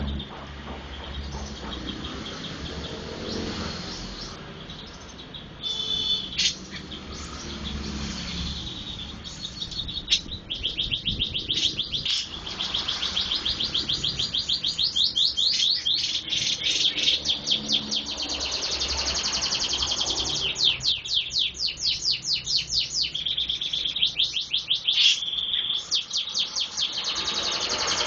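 A songbird singing a long, varied song of high chirps and fast runs of rapidly repeated notes, busier and louder in the second half.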